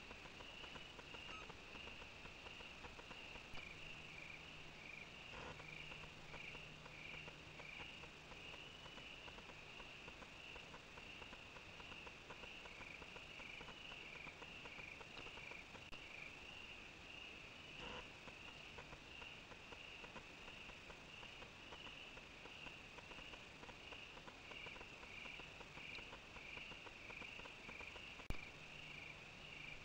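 Crickets chirping steadily in a fast, pulsing trill. A faint low hum comes in for a few seconds early on, and a few soft clicks sound, the sharpest one near the end.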